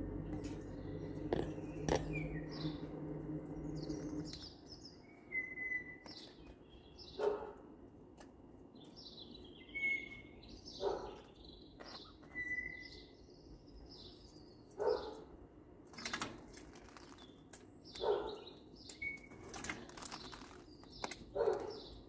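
Quaker parrots calling: short harsh chirps every couple of seconds, with a few brief high whistled notes between them. A steady low mechanical hum sounds underneath at first and stops about four seconds in.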